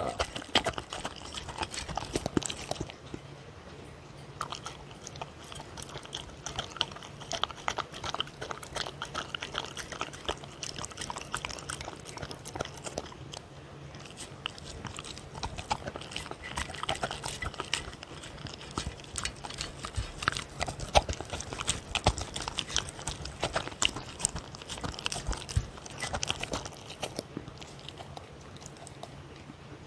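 A dog eating soft food from a stainless steel tray: steady chewing and mouthing with many small, irregular clicks.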